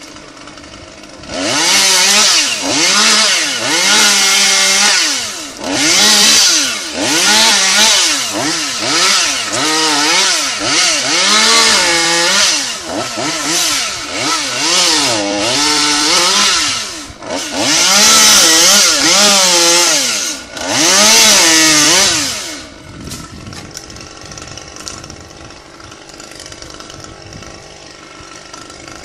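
Chainsaw starts running about a second and a half in and revs up and down over and over, its pitch climbing and sagging as it works through limbs. Near the end it drops back to a low idle.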